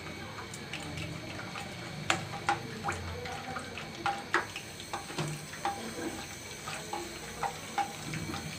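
Sun-dried potato chip slices frying in hot oil in a wok: a steady sizzle with irregular sharp crackles and pops.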